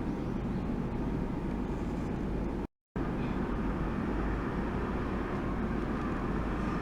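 Steady rushing and rumbling of a pump circulating water through an ultrasonic tank, cut by a brief moment of dead silence a little under three seconds in.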